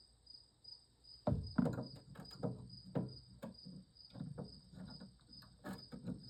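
Irregular clicks and knocks of small metal ratchet parts being handled and fitted as a ratchet head is put back together, loudest just over a second in. An insect chirps steadily about three times a second in the background.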